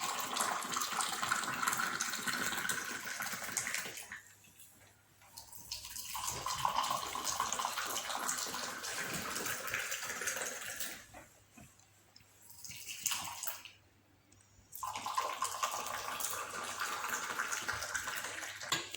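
Water running in three spells of about four to five seconds each, with short pauses between them and a brief splash between the second and third.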